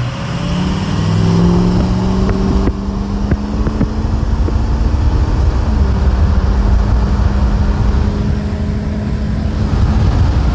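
Freshly rebuilt Ford Powerstroke diesel engine pulling hard under acceleration. Its pitch climbs over the first two seconds and then holds steady, dipping slightly about six seconds in, over steady road noise.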